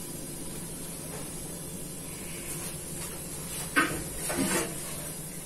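Faint steady hum, then two brief knocks and a short clatter about four seconds in, from dough cut-outs being handled and set down on a metal baking tray.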